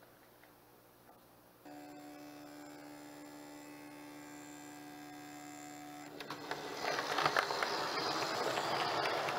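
Model OO gauge Hornby Class 110 DMU on its track. About two seconds in, a steady electric hum comes on while the train stands. From about six seconds in, a growing rattle and clicking of wheels on the rails joins it as the train pulls away.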